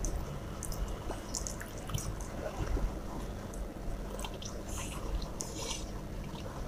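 Eating by hand: fingers squishing and mixing rice with fish curry on a steel plate, and wet mouth sounds of chewing, with many small, scattered clicks and smacks.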